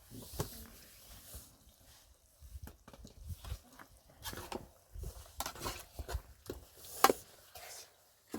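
A run of irregular knocks and clatters, with one sharp click about seven seconds in.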